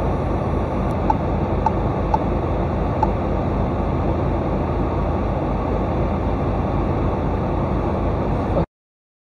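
Steady road and engine noise inside a moving car, as picked up by a dashcam, with a few faint ticks in the first three seconds. It cuts off abruptly near the end.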